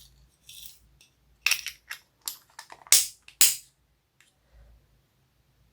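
Homemade slime being worked by hand together with the bits mixed into it: about five short, sharp crackling and rattling sounds, the loudest two near the middle, then nearly quiet.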